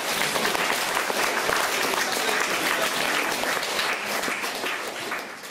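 Audience applauding, many hands clapping steadily, beginning to die away near the end.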